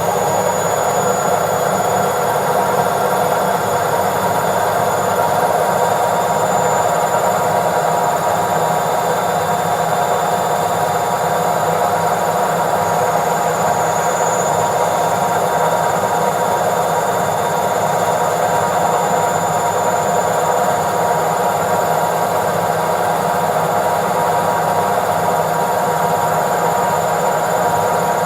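Washing machine drum spinning at a steady high speed in its spin cycle: a steady whine over a low rumble that holds without change.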